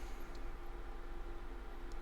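Steady background hum and hiss of a small room, with two faint ticks.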